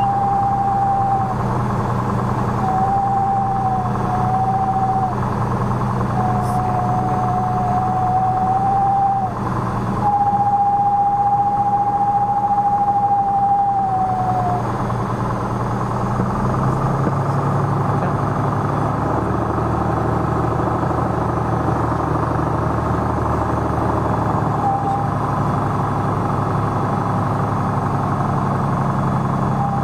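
Piper PA-46 Malibu's piston engine idling while the aircraft taxis, heard from inside the cockpit; its note shifts about halfway through. In the first half a high, clear tone comes and goes in four long stretches of a few seconds each, sliding down at the end of the last one.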